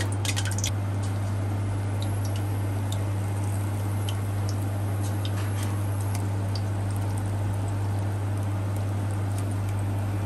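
Pakora batter deep-frying in hot oil in a steel pan: a steady sizzle with scattered crackles and pops, thickest in the first second, over a steady low hum.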